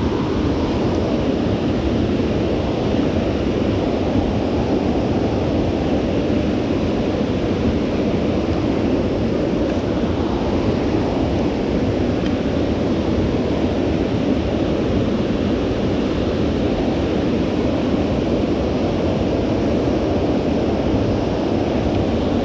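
Steady rushing of flowing river water, an even noise that holds level throughout.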